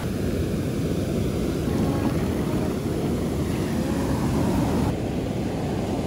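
Ocean surf washing up a flat sandy beach, a steady rushing noise, with wind rumbling on the microphone.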